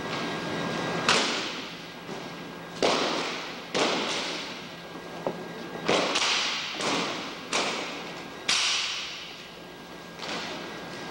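Drill rifles being slapped, caught and struck against the hardwood floor in a silent precision rifle drill: about eight sharp cracks at uneven intervals, each ringing out through the large hall.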